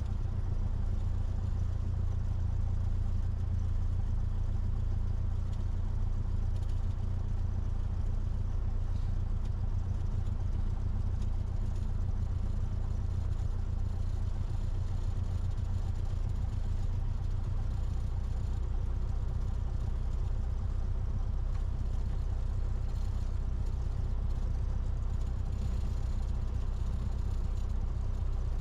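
Cessna 172's piston engine and propeller running as a steady low drone.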